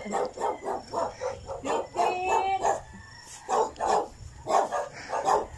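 Dog barking repeatedly in quick short barks, about four a second at first, then a short pause and a slower run of barks in the second half.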